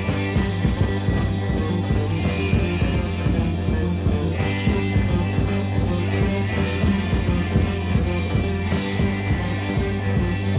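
Psychedelic rock band playing live, with an electric bass driving a fast repeating line of open-string notes alternating with higher fretted notes.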